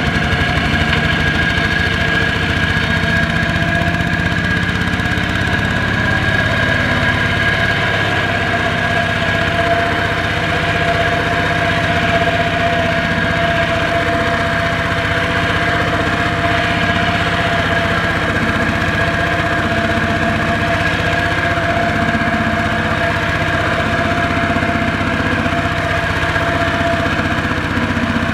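Kubota RT120 power tiller's single-cylinder diesel engine running at a steady, constant speed while pulling a loaded rice trailer stuck in mud.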